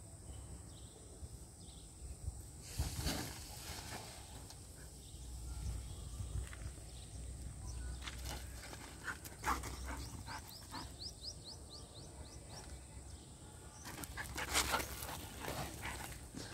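Water buffaloes and a dog moving about on a dirt lane: scattered scuffs and footfalls and a few short breathy bursts, the loudest near the end as the buffaloes come close. A quick run of about eight rising bird chirps sounds a little past the middle, over a steady high-pitched hum.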